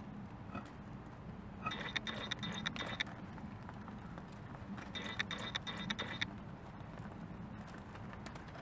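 1/10 scale RC rock crawler with a Fusion Pro brushless motor, driven in two short bursts of about a second each: a high motor and gear whine, with clicking and rattling as the tyres scrabble over stones.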